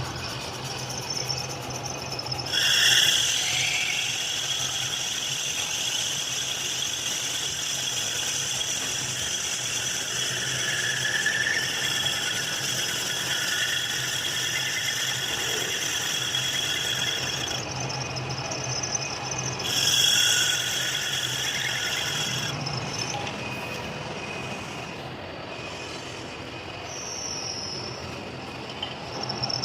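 Machine tool cutting metal, the cutting tool giving a high, steady squeal over a steady motor hum. The squeal starts a few seconds in, runs for about fifteen seconds, stops, then comes back briefly for about three seconds.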